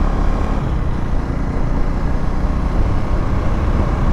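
KTM Duke 390's single-cylinder engine running steadily while the bike is ridden, under a steady rush of low wind noise.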